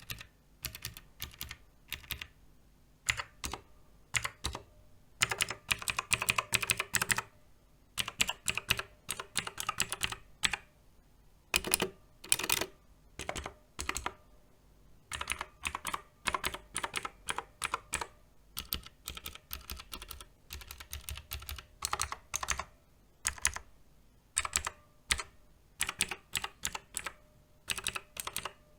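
Typing on a Redragon K568 TKL mechanical keyboard: irregular runs of quick key clicks broken by short pauses.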